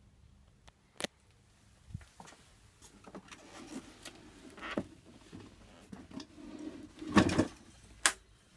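Handling noise from a Vox AC30CCH combo amp's cabinet and top carrying handle: scattered knocks and rustling as it is handled, with the loudest clatter about seven seconds in and a sharp click about a second later.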